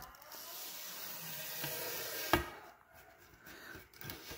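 A tube being slid down over a floor lamp's pole and LED strips: a rubbing, scraping hiss for about two and a half seconds, with one sharp knock a little over two seconds in.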